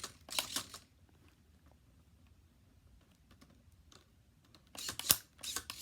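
A run of small sharp clicks and rattles for under a second, then near silence, then a denser clatter of clicks near the end.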